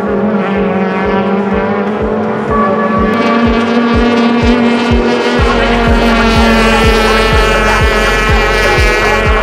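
Background music: an electronic track with a steady kick-drum beat, about two and a half beats a second, under sustained synth chords. A deep bass layer comes in about halfway through.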